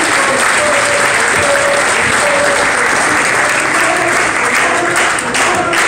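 Crowd applauding, with a few voices over the clapping. Near the end, single sharp claps stand out as the applause thins.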